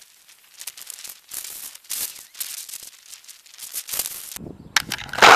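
Gusty wind rustling and crackling at the camera as a storm front arrives, in irregular bursts. Near the end a deeper buffeting comes in, topped by one loud bump.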